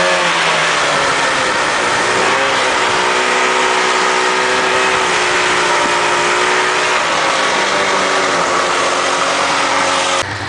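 Snowmobile engine running under way with a steady rush of noise over it. The engine pitch sags briefly about half a second in and again around seven seconds, and the sound drops off abruptly just before the end.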